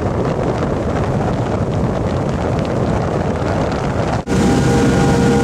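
Wind buffeting the microphone on the deck of a moving boat at sea, a steady rushing noise. About four seconds in it cuts abruptly to a louder stretch of wind with a steady hum running through it.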